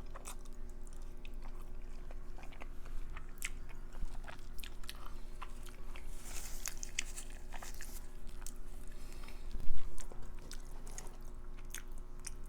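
A person eating with the mouth close to the microphone: chewing and biting, with many small wet clicks and crackles. There is one louder thump about ten seconds in.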